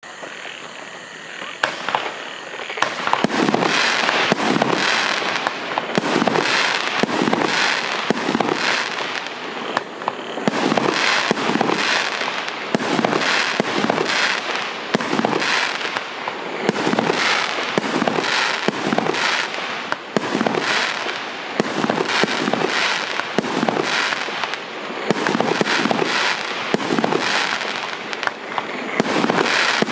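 Multi-shot 1.2-inch firework cake firing shot after shot in a steady rhythm, about one and a half shots a second, each a sharp bang with a crackling tail, starting about two seconds in.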